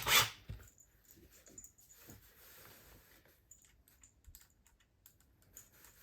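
A power screwdriver's short run cuts off just after the start, followed by faint, scattered small clicks and light taps.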